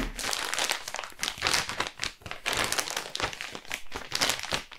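Clear plastic polybag crinkling and crackling in irregular bursts as it is handled, with a folded hoodie inside.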